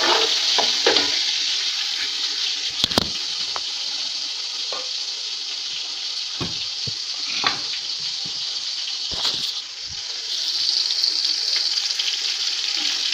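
Onions, green chillies and tomatoes sizzling in hot ghee in a metal pot: a steady frying hiss, with a few sharp knocks of the steel ladle against the pot. The sizzle swells louder a little after two-thirds of the way through.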